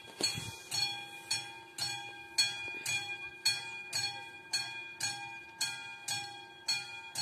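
Railway level crossing warning bell striking steadily, about twice a second, each strike ringing on: the crossing's warning is active for an approaching train.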